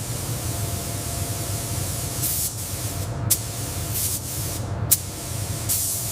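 Steady hissing noise over a low rumble, with louder spraying hisses about two, four and near six seconds in and two sharp clicks.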